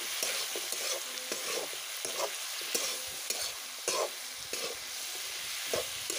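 Chicken and sliced potatoes sizzling in hot oil in a metal kadhai while a spatula stirs them, scraping and knocking against the pan now and then.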